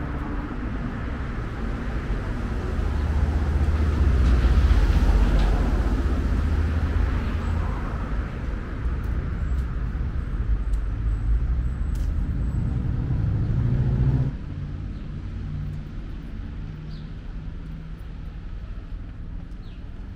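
Busy city street traffic: a steady low rumble of passing cars that swells a few seconds in, then drops suddenly to a quieter street hum about two-thirds of the way through.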